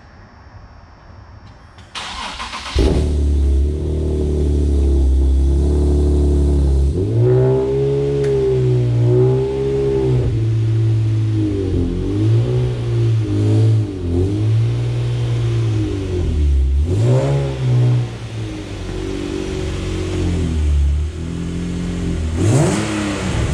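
Nissan 370Z's 3.7-litre V6 starting about two seconds in and settling into a steady idle, then revved up and down repeatedly.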